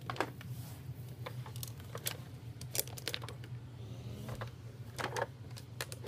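Handling noise from a plastic toy jet being carried close to the microphone: scattered clicks and light knocks, a few louder than the rest, over a low steady hum.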